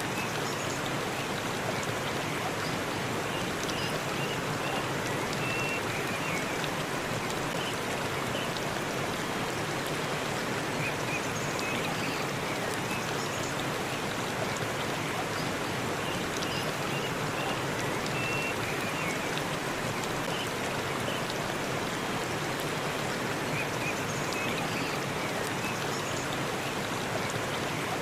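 Waterfall splashing steadily, an even rush of falling water, with a few brief high chirps over it.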